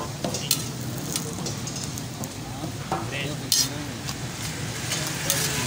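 Lachha parathas sizzling on a large flat griddle, with a metal spatula scraping along the griddle and striking it in a few sharp clinks as the breads are turned.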